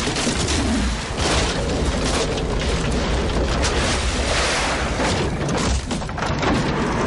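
Film car-crash sound effects: a car smashing through wooden planks, crates and a metal dumpster, a dense run of repeated crashes and bangs.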